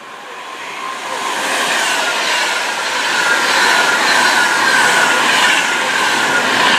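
A Class 390 Pendolino electric train passing through the station without stopping. It grows louder over the first two seconds, then holds as a steady rush of wheels on rail with a faint, slowly falling whine.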